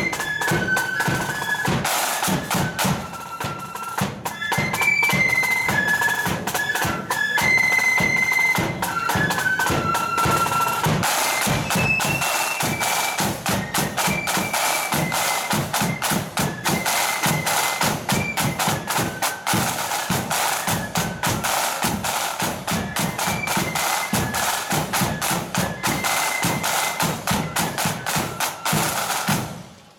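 Marching flute band playing a tune: flutes carry the melody over a dense rattle of snare drums and a bass drum beat. The music stops abruptly near the end.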